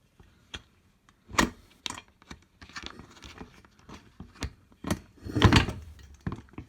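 Clicks, knocks and rattles of screws and metal and plastic buggy parts being handled during assembly, with a sharp knock about a second and a half in and a louder clatter about five and a half seconds in.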